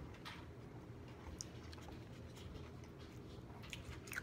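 Faint small clicks and taps, a few scattered, from eating at a table, over a low room hum.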